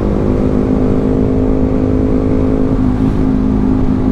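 A 2017 Suzuki GSX-S150's single-cylinder engine running at steady revs while under way, with wind rushing over the microphone. The engine note shifts slightly about three seconds in.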